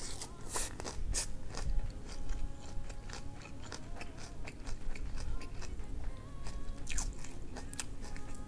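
Close-up crunching and chewing of a crisp raw napa cabbage heart: many sharp crunches one after another, over a low air-conditioner hum.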